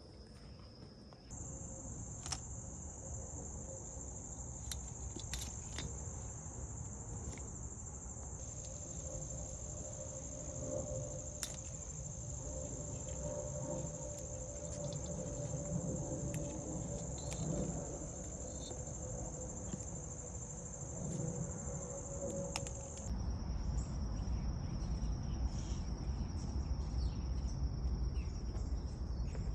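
Steady high-pitched trilling of insects in the garden, with its pitch stepping up about a second in and back down near the end. Underneath, rustling of tomato foliage being handled and a few small clicks.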